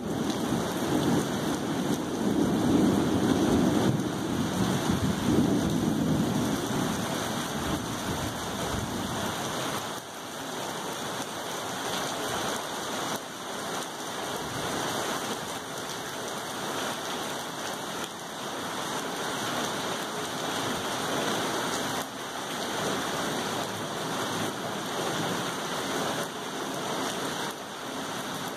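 Steady rain falling, with a low rumble of thunder during the first several seconds that then dies away, leaving only the rain.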